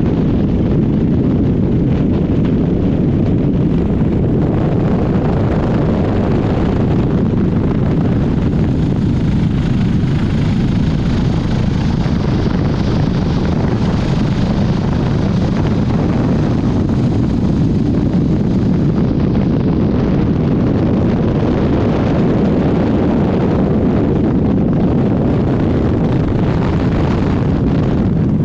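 Helicopter in steady flight: a loud, even rush of rotor and engine noise that holds without a break.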